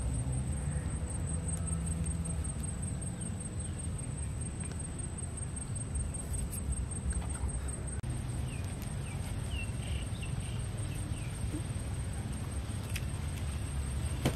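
Outdoor background noise: a steady low rumble under a continuous high-pitched whine, with a few faint short chirps about two-thirds of the way through.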